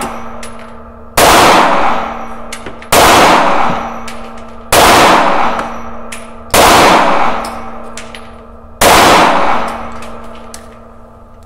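Smith & Wesson M&P9 pistol firing 9x19 rounds: five single shots about two seconds apart. Each shot rings out in a long decay in the small indoor range.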